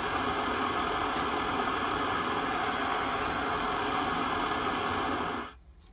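Russian Primus PT-2 petrol stove burner running with a steady hiss, quiet for a petrol burner, then turned off at its valve: the hiss cuts off suddenly about five and a half seconds in.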